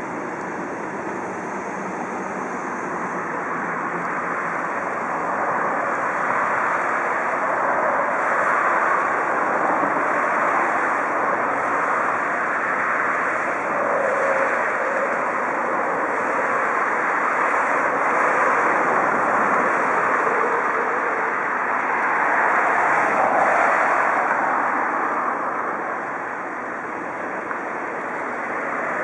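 Passenger trains rolling over the station tracks: a steady rushing that swells and eases, dipping briefly near the end.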